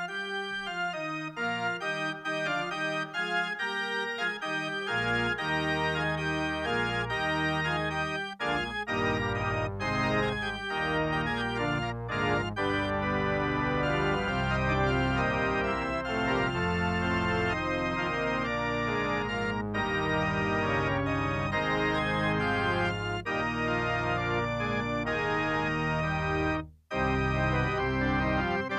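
Organ music playing the closing postlude after the benediction: held chords, with bass notes coming in a few seconds in. It cuts out for a moment near the end.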